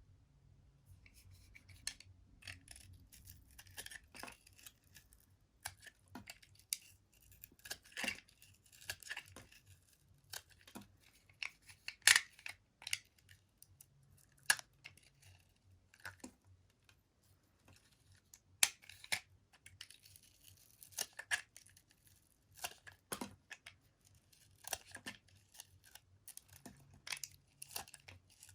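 Knife cutting through soap: irregular crisp cracks and short crackling scrapes as the blade goes through, with the sharpest crack about twelve seconds in.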